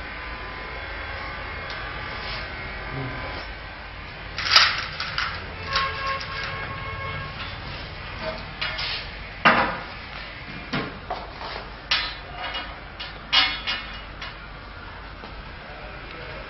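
Scattered metal clanks and knocks as steel angle bars are handled and fitted against a loom's steel frame, about a dozen sharp hits starting a few seconds in, over a steady low hum.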